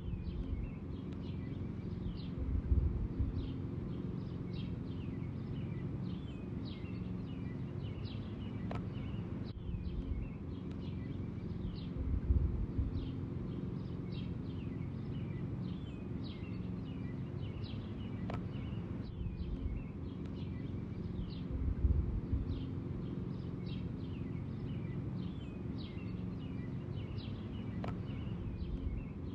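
Small birds chirping over and over, short falling chirps, above a steady low hum. A dull low thump comes about every nine to ten seconds.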